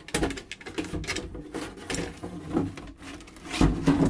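Plastic rear case of an Apple Macintosh SE being fitted down over the chassis: an irregular run of scrapes, rubs and knocks, with the loudest knocks near the end.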